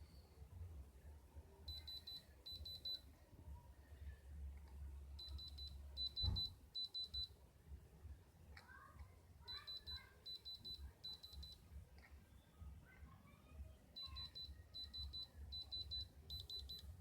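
An electronic alarm beeping faintly: a single high tone in quick bursts of rapid beeps. The groups repeat every few seconds and lengthen from two bursts to three and then four, the pattern of a digital alarm clock. A low hum runs underneath.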